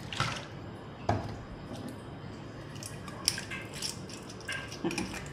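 Kitchen handling sounds around a steel mixing bowl: bottles and spice containers picked up, capped and set down on the counter, giving a handful of scattered clicks and knocks.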